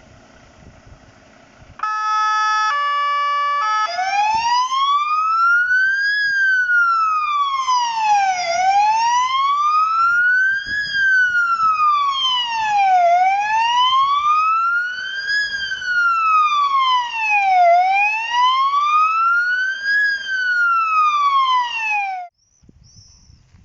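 Fire engine's electronic siren: a few short stepped tones, then a slow wail rising and falling in pitch about every four and a half seconds, which cuts off suddenly near the end.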